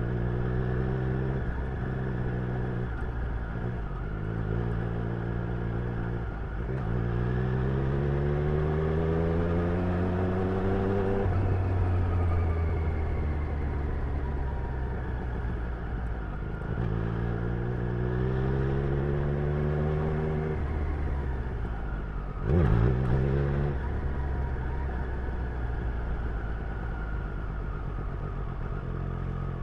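Triumph Street Triple's inline three-cylinder engine and exhaust under way: running at steady throttle, then twice pulling up through the revs in long rising sweeps before easing off. A brief loud burst a little past the middle.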